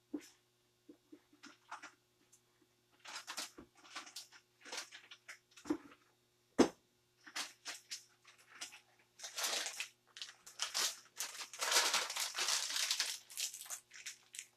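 Plastic piping bag crinkling and rustling in irregular bursts as it is handled and filled with buttercream icing, with a few sharp knocks, the loudest about two-thirds of the way through.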